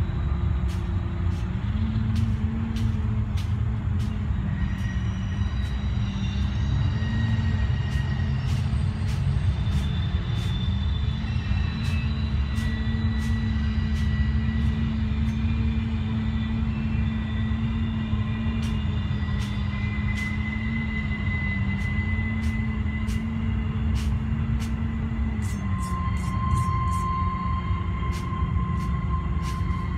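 A steady low mechanical rumble from a running machine, with a hum that wavers slightly in pitch. Faint sharp ticks are scattered through it and come in a quick run near the end.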